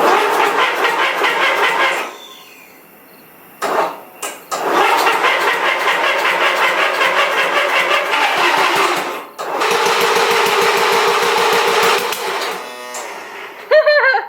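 Riding lawn mower's small engine being cranked over by its starter in three bursts, with short pauses between them: a fast, even, rattling rhythm that does not settle into running. A brief warbling squeal comes near the end.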